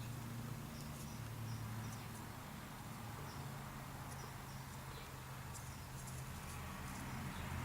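Faint light clicks and scratches as small balsa-wood pieces are handled, over a steady low hum.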